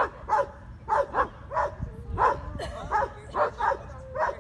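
Repeated short, sharp animal calls, about three a second, going on steadily without a break.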